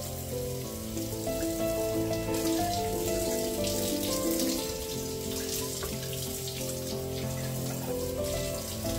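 Tap water running and splashing onto dishes being rinsed in a sink, under soft background music with held notes.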